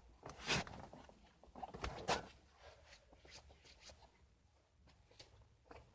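Faint rustling and small clicks of hands handling twisted speaker wires, a few short scattered noises, the strongest in the first two seconds.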